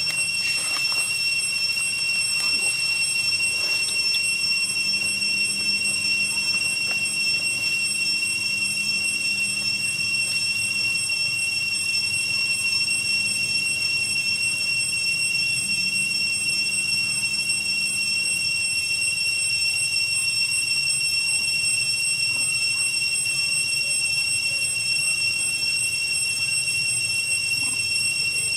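Cicadas in the surrounding trees giving a steady, shrill whine held on one pitch, over a low rumbling background.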